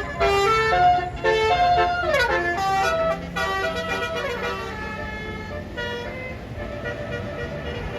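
Bus 'telolet' basuri air horn playing a quick melody of stepped notes with sliding drops in pitch, loudest over the first three seconds and dying away by about six seconds, leaving the steady noise of vehicles.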